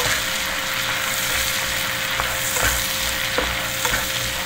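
Sliced garlic and ginger sizzling in bubbling melted butter in a frying pan while a spatula stirs it, with a few light taps of the spatula against the pan in the second half.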